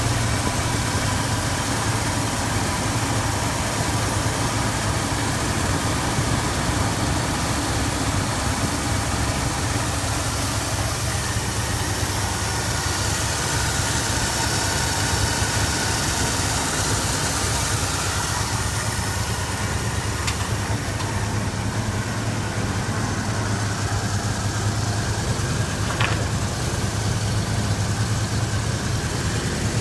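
1978 Ford F-150 engine idling steadily.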